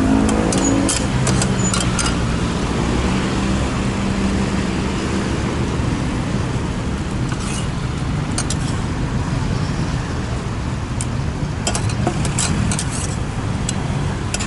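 Metal spatula scraping and clacking against a large flat steel frying pan as rice noodles are stir-fried, in clusters of sharp strokes near the start, around the middle and again near the end. Steady street traffic noise runs underneath, with a low engine hum fading over the first few seconds.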